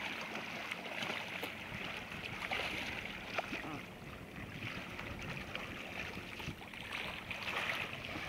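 Intex Challenger K1 inflatable kayak being paddled with its plastic paddle: the blades splash and drip in the water, with small splashes coming unevenly over a steady watery hiss.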